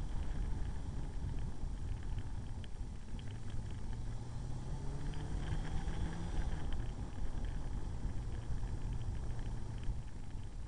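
Motorcycle engine running at cruising speed under heavy wind rush on the microphone, its hum rising slightly in pitch partway through and then settling.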